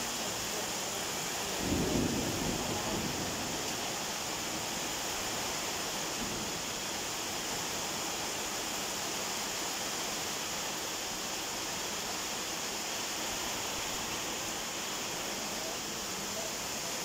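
Heavy rain pouring steadily onto trees and leaves, an even hiss, with a short low rumble about two seconds in.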